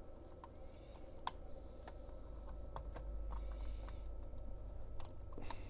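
Scattered, irregular light plastic clicks and taps from prying at and handling a laptop's plastic palm rest and trackpad, over a low steady hum.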